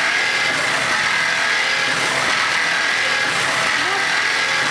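Fish and meat slicing machine running steadily: constant mechanical noise with a steady high tone.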